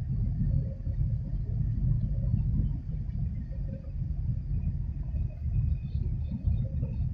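Wind buffeting the microphone: a low, uneven rumble that rises and falls in quick gusts.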